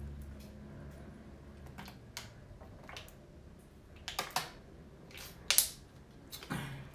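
A person drinking water: scattered sharp clicks and smacks, about eight of them, the loudest about five and a half seconds in.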